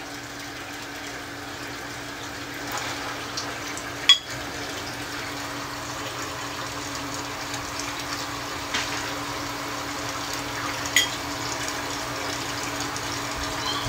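A pot of stewed beans simmering and bubbling while a metal spoon stirs and scoops through it, clinking against the pot a few times, most sharply about four seconds in and again near eleven seconds.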